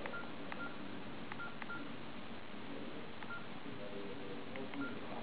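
Keypad tones of an LG KS10 phone: a soft key click followed by a short high beep each time the navigation key is pressed, about six presses, three in the first second and a half and the rest a little later.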